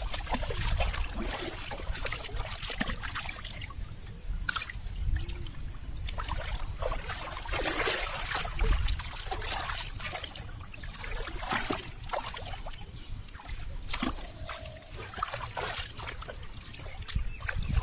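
Shallow muddy floodwater splashing and sloshing in irregular bursts as a person wades barefoot through it and gropes in it by hand.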